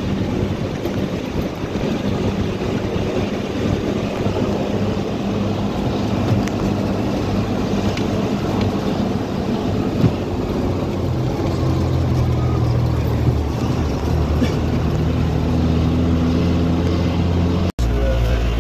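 Bus engine running steadily under load on a mountain climb, heard from inside the bus along with road noise. Its low engine note shifts in pitch about two-thirds of the way through.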